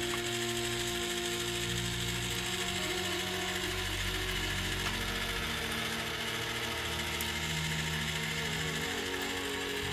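Electric skewer grill's motor and gear drive running steadily as it turns the shashlik skewers over charcoal. Background music with changing low notes plays over it.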